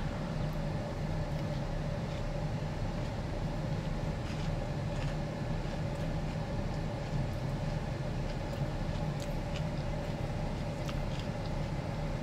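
Steady low hum of a car idling, with a few faint clicks.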